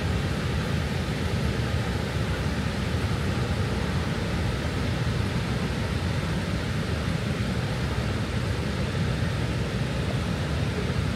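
Steady, deep rushing roar of the American Falls at Niagara, an unbroken wall of falling-water noise.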